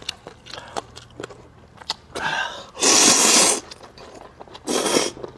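Eating sounds at a noodle mukbang: small mouth clicks and smacks, then two loud, long slurps of noodles, the first about three seconds in and a shorter one about five seconds in.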